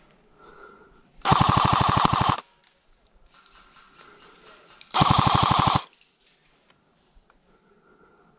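Airsoft gun firing two fully automatic bursts, the first about a second long and the second a little shorter, each a fast, even rattle of shots.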